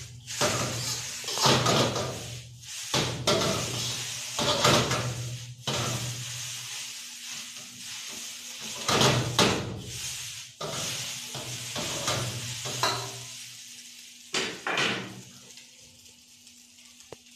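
Noodles sizzling in a wok while being stir-fried and tossed, with repeated scraping of a metal ladle against the wok about every second. The strokes grow weaker and the sizzle dies down near the end, over a steady low hum.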